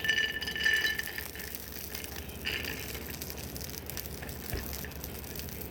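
Steady rush of falling water that starts abruptly. A brief pitched chirp rides over it in the first second and again about two and a half seconds in.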